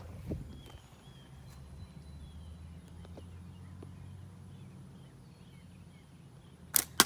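Faint bird chirps over a low steady hum, then near the end a slingshot shot: a sharp snap as the bands release and, a split second later, a sharp crack as the shot strikes a small soft drink can.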